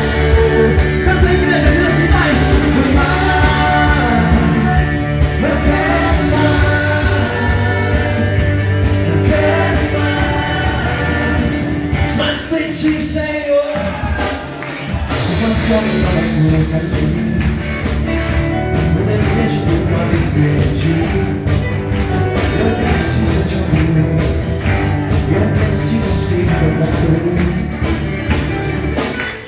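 Live church band playing a rock-style worship song with a voice singing, with a brief break in the music about halfway through.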